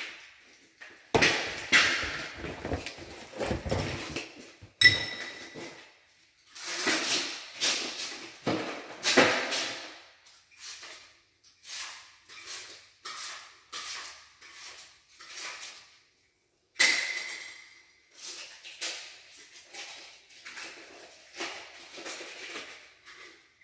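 Irregular knocks, scrapes and clatter of tools and tile materials being handled. There is a brief ringing tone about five seconds in, and another lasting about a second two-thirds of the way through.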